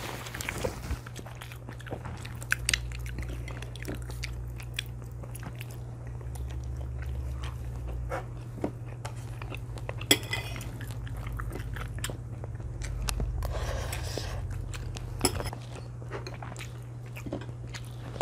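Close-miked chewing and biting: two children eating roasted chicken wings and rice, with small wet mouth sounds and occasional light clicks of cutlery on plates, over a steady low hum.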